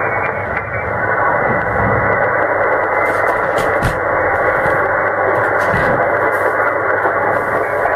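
Shortwave receiver audio from an Icom IC-7600 transceiver in single-sideband mode on the 15 m band: a steady rush of band noise and static squeezed into the narrow voice passband, with no readable signal.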